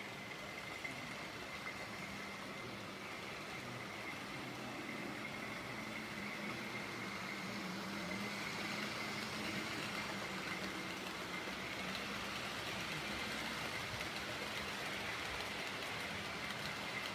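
Model train running on the layout: a steady whirr with a thin high hum, growing a little louder over the first half.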